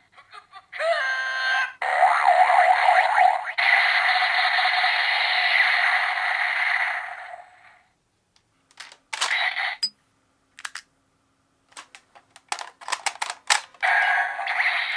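Electronic sound effects played through the small speaker of a DX Gabu Gabu Revolver toy gun: short pitched calls, then a long blast of noise lasting about five seconds. This is followed by a series of sharp plastic clicks as the toy is worked by hand, and another electronic sound near the end.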